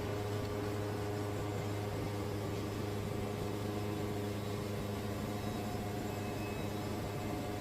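Wood-Mizer band sawmill running steadily with its band blade cutting through a large cypress log: an even machine hum that does not change.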